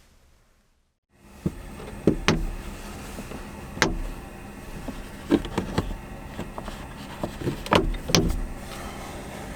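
Near silence for about a second, then a run of sharp knocks and clatters over a steady low hum, the loudest about two, four, five and a half and eight seconds in.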